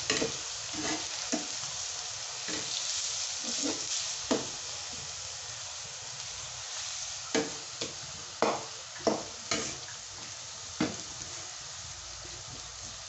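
Chopped onions sizzling steadily in hot oil in a kadai, stirred with a perforated metal slotted spoon that clicks and scrapes against the pan several times.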